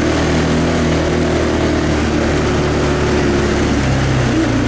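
ATV engine running steadily while riding across grass, its note shifting slightly up and down with the throttle.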